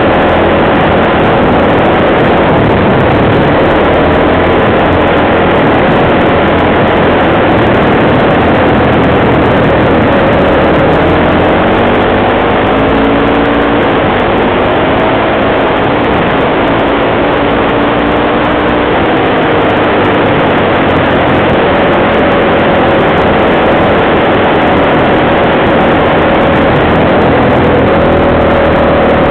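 Off-road vehicle's engine running while riding, its pitch rising and falling with the throttle, mostly in the middle stretch. Heavy steady wind and gravel noise sit over the engine.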